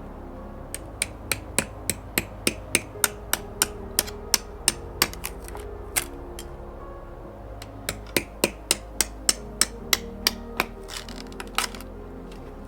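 Two runs of sharp, evenly spaced knocks, about three a second, over background music.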